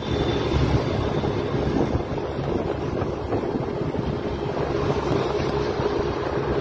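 Wind rushing over the microphone with road and engine noise of a moving vehicle, a steady rush with a faint hum under it.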